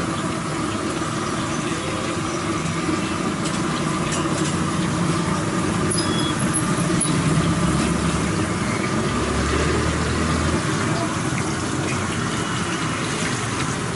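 Steady sizzle of janthikalu (murukulu) dough frying in hot oil in a large iron kadai, with street traffic underneath. A low engine hum passes between about nine and ten and a half seconds in.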